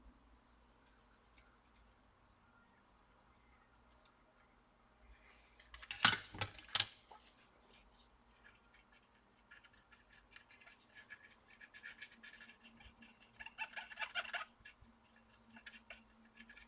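Small hand tools working on a laptop board: a quick cluster of sharp clicks about six seconds in, then several seconds of rapid scratching and scraping.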